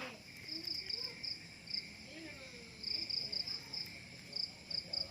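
Insects chirping: short high-pitched pulses coming in irregular clusters over a steady high insect drone.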